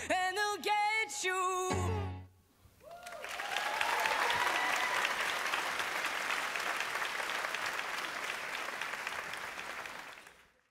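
The last sung notes of a recorded pop song end abruptly about two seconds in. After a brief pause an audience breaks into applause and a few cheers, which fade out at the very end.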